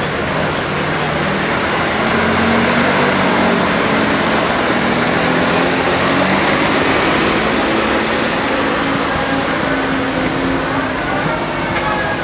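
Diesel engine of a forestry skidder running under load as the machine works through deep mud, its note rising about two seconds in and holding steady.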